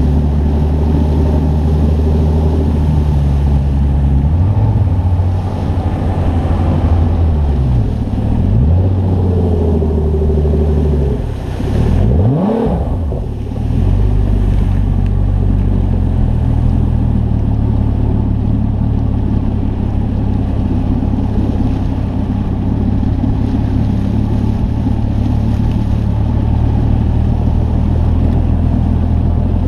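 Boat engine running steadily with a low drone. Around 8 and 12 seconds in its pitch sweeps down and back up, and the sound briefly dips.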